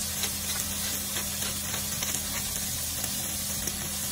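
Sliced red bell peppers, mushrooms and onion sizzling in a frying pan: a steady hiss with faint scattered crackles.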